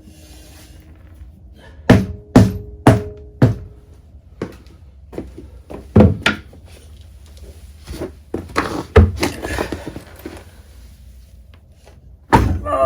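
Heavy knocks struck on a Triumph Explorer 1200's seized rear wheel to free it from the hub, where road-salt crust has stuck it on. The knocks come unevenly, some with a short metallic ring, and the loudest comes near the end as the wheel breaks loose.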